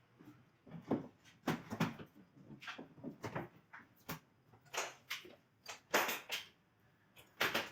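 A run of irregular knocks, clicks and short scrapes, like parts and tools being handled and set down. The loudest knocks come about six seconds in and near the end.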